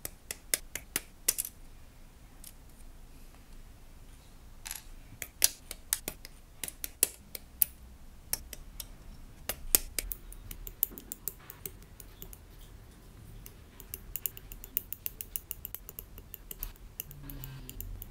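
Hobby side cutters snipping plastic model-kit parts off their runner and trimming the gate nubs: an irregular run of sharp clicks and snaps, coming faster about three-quarters of the way through.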